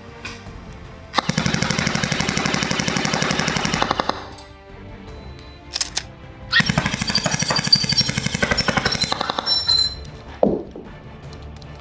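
Electric airsoft gun firing two long, rapid strings of shots, the motor-driven gearbox cycling fast; the first string runs about three seconds and the second starts a couple of seconds after it ends.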